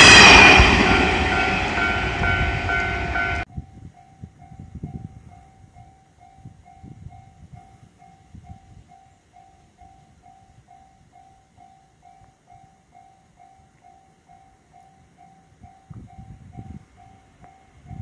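A 205-series electric commuter train passes close by loudly and cuts off abruptly a few seconds in. A Japanese level-crossing warning bell then rings faintly and steadily, about two strikes a second, over a light low rumble.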